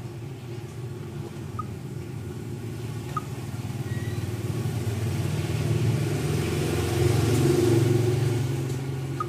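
Low engine rumble of a passing motor vehicle. It swells to its loudest about seven to eight seconds in, then fades.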